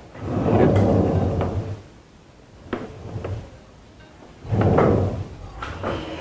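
Sheet-metal chassis of an opened Joson Jupiter integrated amplifier being slid and turned around on a table. There are two bursts of scraping and bumping, one at the start and one about four and a half seconds in, with a light click between them.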